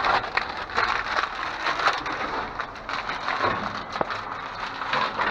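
Discarded items in a dumpster being rummaged through and shifted: irregular crunching and crinkling with scattered knocks.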